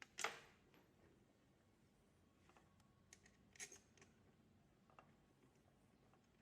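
Near silence broken by a few short clicks and taps of lock hardware being handled and fitted, the loudest a sharp click just after the start and a smaller one about three and a half seconds in.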